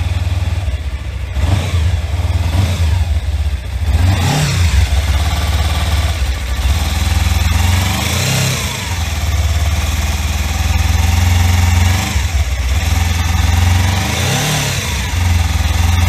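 Suzuki V-Strom 250's parallel-twin engine running at idle just after a top-end overhaul, with the throttle blipped several times so the revs rise and fall back.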